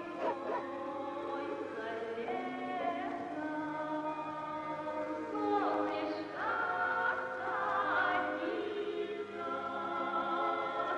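Film-score choir singing slow, sustained chords, with a few sliding notes about halfway through.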